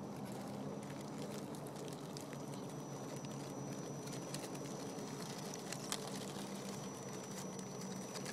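Electric drivetrain of a radio-controlled scale truck running steadily as it tows a trailer: a low motor and gear hum with a thin high whine, and a few sharp clicks.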